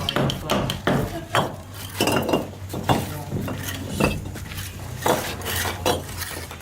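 Dishes and utensils clinking and clattering: many irregular knocks, some with a short ringing tone.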